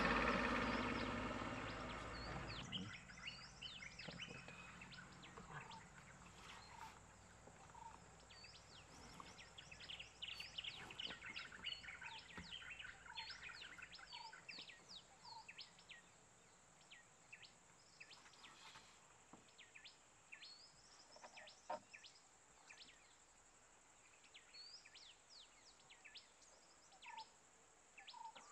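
Faint wild birdsong from the roadside forest: many short high chirps and whistles from several birds, with a lower note repeated about once a second for a while. A low rumble fades out over the first couple of seconds.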